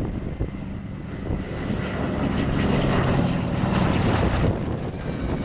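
Douglas DC-3 Dakota's twin radial piston engines and propellers droning as it flies past. The drone grows louder to a peak about three to four seconds in, then eases off slightly.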